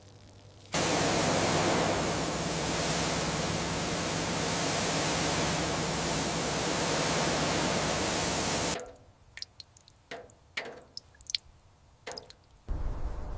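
A high-pressure spray hissing loudly over a steady low machine hum for about eight seconds, starting and cutting off abruptly. It is followed by a few sharp clicks.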